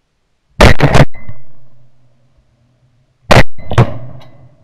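Four shotgun shots fired at passing ducks, in two quick pairs about a second in and again near the end, each dying away with a short echo.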